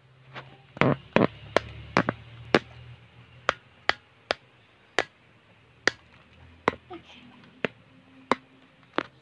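Guinea pigs moving about in a plastic crate: sharp, irregular clicks and taps on the plastic grid floor, about one or two a second, with a low hum in the first few seconds.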